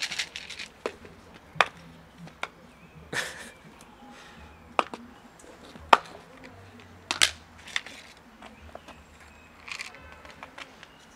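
Cats eating dry kibble from plastic tubs on concrete: scattered sharp clicks and knocks of crunching kibble and tubs being bumped, with about half a dozen loud ones spread through.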